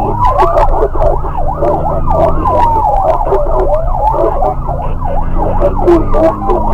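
Police car siren sounding close and loud: a slow rising-and-falling wail with a fast yelp running over it, over the low hum of a vehicle engine.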